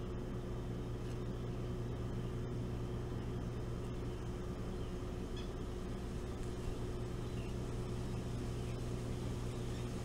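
A steady low mechanical drone holding one pitch throughout, with a few faint short high chirps around the middle.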